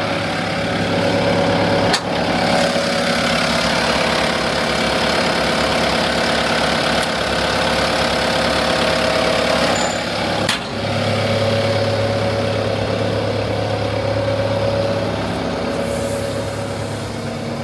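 Bobcat T740 skid steer's four-cylinder turbo-diesel engine running steadily. Its sound changes abruptly about two seconds in and again about ten seconds in.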